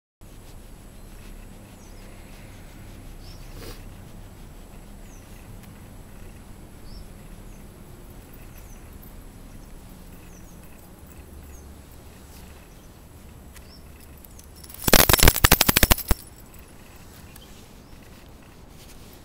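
Faint outdoor background, then about three-quarters of the way in a loud burst of rapid crackling rustle lasting just over a second, from something rubbing right against the microphone.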